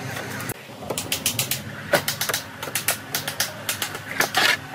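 Pine bed slats knocking against one another and against the wooden bed frame as they are set in place, an irregular quick run of wooden clicks and taps, with a longer, rougher knock near the end.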